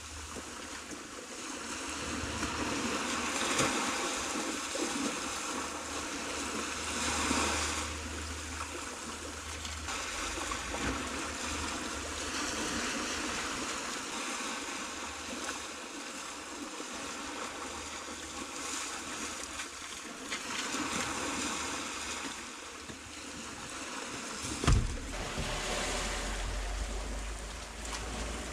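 Sea washing in over a concrete slipway, a steady rushing of small waves, with gusts of wind buffeting the microphone. A single sharp knock sounds near the end.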